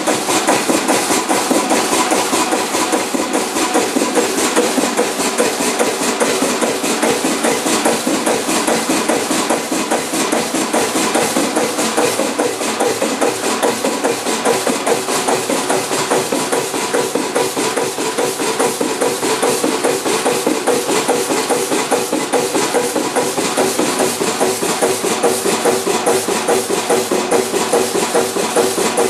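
Kromhout 2H3 marine diesel engine running steadily, heard close up in the engine room as a fast, even mechanical knocking.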